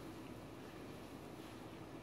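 Faint, steady background noise with a low hum, and no distinct mechanical event.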